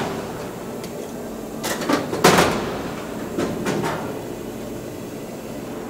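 A few metallic knocks and clatters from handling tools against a loose aluminium wing skin, the loudest about two seconds in.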